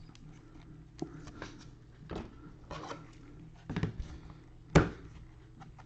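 Handling noise of a trading card and its plastic holder: scattered short clicks and rustles of plastic, with one sharper knock near the end.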